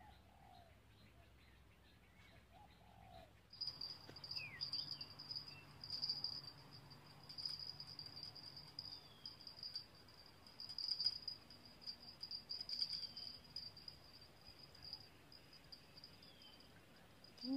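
Steady high-pitched insect buzzing, rising and falling in strength, starts about three and a half seconds in, with short bird chirps scattered over it. Before that there are only a couple of soft, low bird calls.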